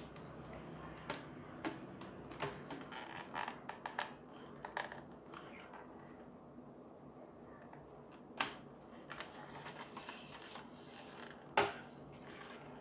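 Small plastic clicks, taps and rubbing as the white plastic housing of a T5 LED batten light is handled and its plastic end cap worked on. The clicks are frequent over the first few seconds and sparse after that, with one louder click near the end.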